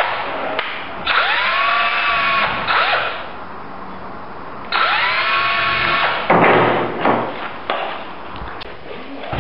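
DeWalt cordless drill boring pilot holes through a steel hinge's screw holes into the timber edge of a door. It runs in three short bursts, whining up in pitch each time it spins up. A brief rattle and a few clicks follow.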